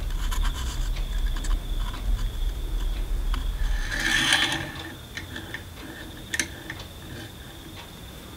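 Light metallic clicks and ticks of small metal parts being handled: a nut being fitted onto a threaded rod in a carbon fibre plate. A low hum runs under them and stops about four seconds in, with a brief rasping rush just before it stops.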